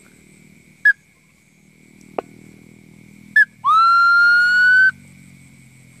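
Bamboo bird call (hatong), mouth-blown to lure birds into a mist net. It gives a short high chirp about a second in and another short chirp past three seconds. Then comes a loud whistled note held for over a second that swoops up at its start and climbs slightly, and a last short chirp at the end.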